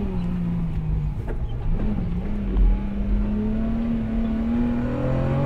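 Datsun 240Z rally car's straight-six engine heard from inside the cabin: the revs fall as the car slows for a tight corner, then pick up and climb steadily as it accelerates out. A dull thud is heard about two and a half seconds in.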